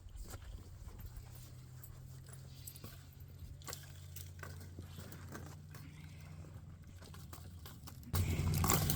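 Faint scattered knocks and rustles over a steady low hum, then near the end a sudden louder metallic rattle of a metal paddock gate and its latch being worked.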